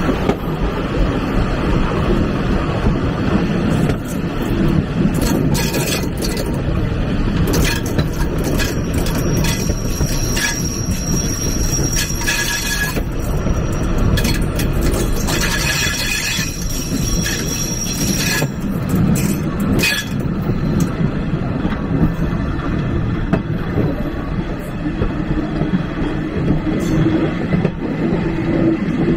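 Railway carriage running along the track: a steady rumble from the wheels and running gear with irregular clicks and knocks. Twice in the middle a high steady wheel squeal comes in and lasts a few seconds, typical of flanges rubbing on a curve.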